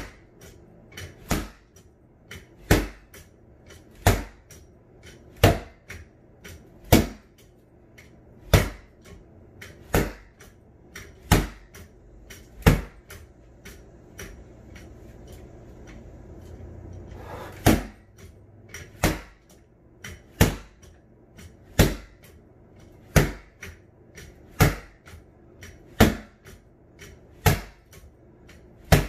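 Rattan sword repeatedly striking a freestanding punching bag in pell practice: sharp, loud whacks about every second and a half, with lighter knocks between them. The strikes pause for about five seconds near the middle, then resume at the same pace.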